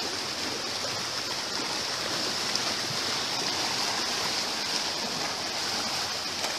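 Small waves lapping and washing over shoreline rocks, a steady rushing of water, with a steady high hiss over it.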